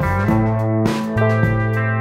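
Instrumental background music with sustained chords and a regular beat.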